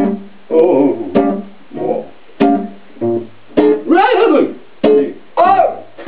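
Guitar playing a blues in short, separate strummed chords about every half second, each ringing briefly before the next. A wavering tone rises and falls over it about four seconds in and again near the end.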